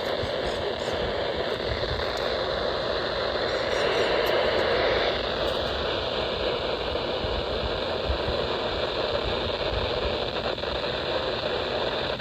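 Steady static hiss from a weather radio receiver with no broadcast voice coming through, swelling slightly about four seconds in.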